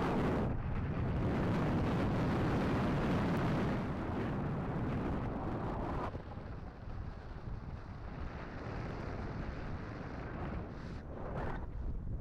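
Wind buffeting the microphone of a camera carried on a moving road bike: a loud, rumbling rush that drops sharply about six seconds in and carries on at a lower level.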